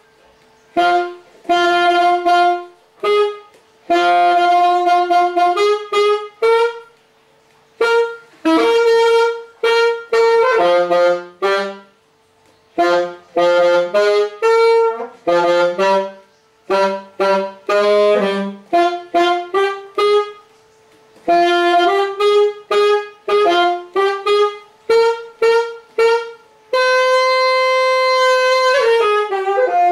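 Yamaha YAS-280 alto saxophone played solo: short phrases of separate notes with brief pauses between them, and one long held note near the end.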